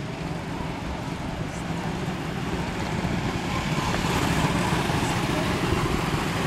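Several quarter midget race cars' small engines running at racing speed as the pack passes through the turn, growing louder about halfway through as the cars come close by.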